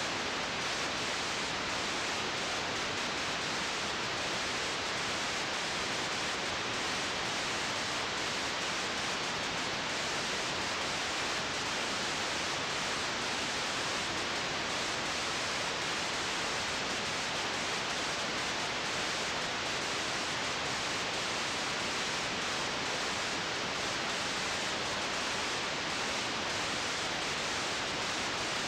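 Steady hiss from a blank stretch of the old video transfer: even recording noise with no other sound in it.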